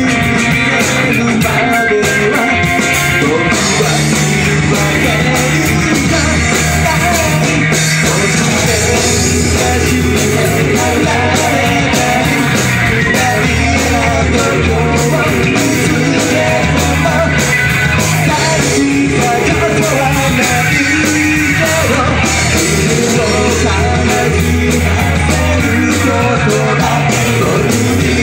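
Rock band playing live: electric guitars through amplifiers, a TAMA drum kit and a singer at the microphone, loud and continuous.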